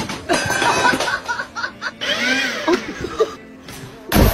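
Music with laughter and chuckling, then a short loud burst of noise near the end.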